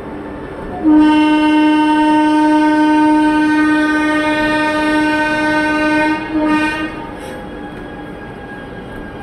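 Electric locomotive horn: one long blast of about five seconds, then a short second toot, over the steady rumble of a passing goods train.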